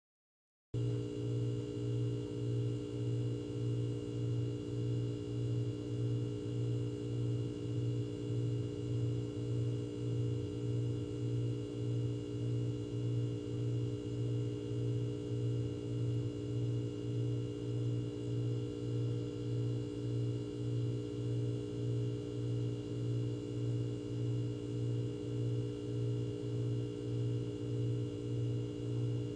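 Refrigerator running: a steady hum with a low throb pulsing evenly about two to three times a second, over several fainter steady higher tones. It starts just under a second in.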